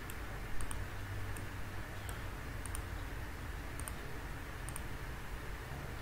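Computer mouse button clicking as faces are picked one after another, light clicks about every second, some in quick pairs, over a steady low hum.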